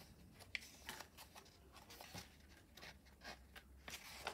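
Faint paper rustles and light clicks of a hardcover picture book's pages being handled, with a page lifted and turned near the end.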